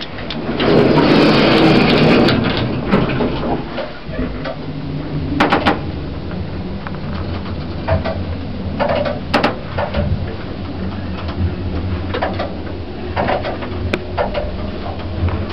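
1980s Stannah lift: a loud door-like rattle near the start, then the lift running with a steady low motor hum, broken by scattered clicks and knocks from its mechanism.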